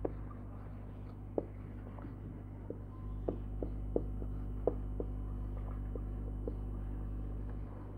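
Felt-tip marker writing on a whiteboard: a scatter of short, light ticks as the pen strokes and lifts, over a steady low electrical hum.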